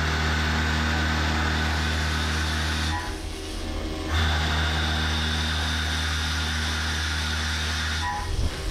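CNC mill drilling G10 fiberglass composite with a .984-inch Kennametal DFSP indexable drill at 4675 rpm under flood coolant: a loud, steady machining drone that drops away for about a second, once about three seconds in and again near the end.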